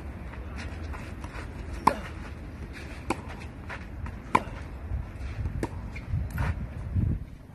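Tennis ball struck by a racket in a baseline rally: sharp pops of racket hits, the loudest about two and four and a half seconds in, with fainter hits and ball bounces between, over a steady low rumble.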